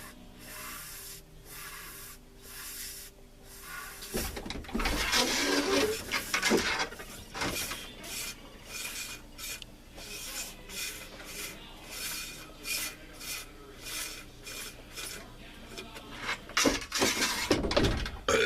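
Cheap fidget spinner spinning close to the microphone, its rough bearing giving a scratchy, rasping whir, louder about four seconds in and again near the end.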